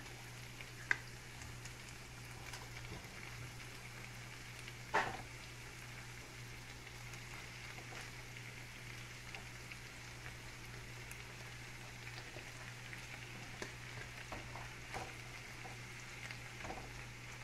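Longaniza and mushrooms sizzling steadily in a frying pan on a gas stove as shredded cheese is scattered over them by hand. There are two sharp knocks, a small one about a second in and a louder one about five seconds in.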